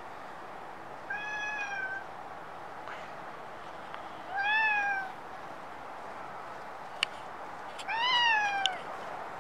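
A stray domestic cat meowing three times, each meow rising and then falling in pitch, the last one the loudest. A sharp click comes about a second before the last meow, over steady background noise.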